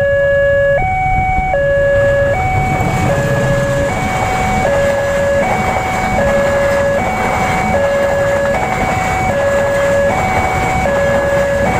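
Railway level-crossing alarm sounding its two-tone electronic warning, a high and a low tone alternating about every three-quarters of a second. Underneath is the low rumble of a passenger train passing over the crossing.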